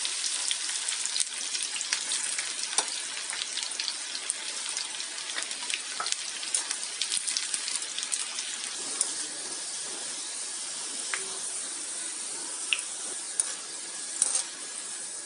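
Sliced okra (bhindi) deep-frying in hot mustard oil in a kadhai: a steady sizzle with scattered sharp pops and crackles, easing slightly as the batch cooks.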